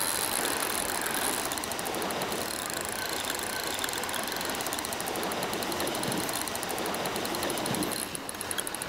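A fishing reel's drag ticking rapidly as a big red sea bream strips line off against it, twice in spells, over a steady rush of wind and sea.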